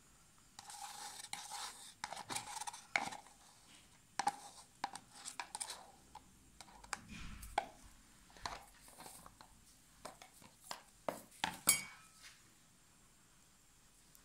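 Handling noises as a stretched canvas covered in poured acrylic paint is gripped and tilted: irregular light taps, knocks and rustling, with the sharpest click near the end, then it goes quiet.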